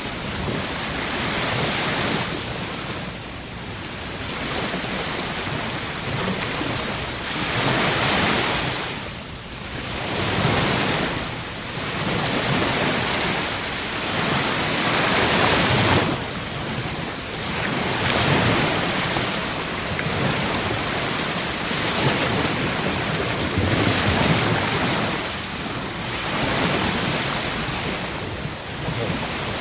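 Sea waves breaking and washing up, a continuous rushing surf that swells and ebbs every few seconds.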